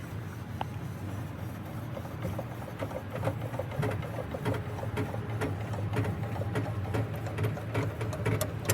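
Car jack being lowered with its hand crank: a quick run of small metallic clicks, several a second, starting about two seconds in, over a steady low hum.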